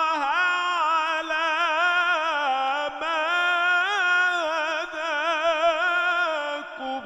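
A man's voice reciting the Quran in melodic tajweed style, drawing one word out into a single long melismatic phrase with a continually wavering, ornamented pitch. It dies away at the very end.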